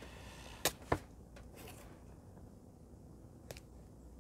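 Hands handling a roll of washi tape and paper on a notebook page: two short sharp clicks about a second in, then a fainter tick near the end, over quiet room tone.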